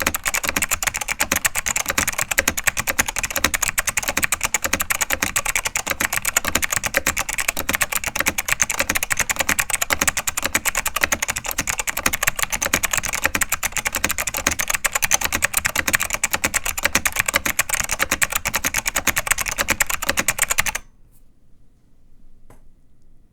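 Rapid, continuous typing on a ProXellent keyboard with Alps SKCM White mechanical switches. The keystrokes stop abruptly about 21 seconds in, followed by one faint click.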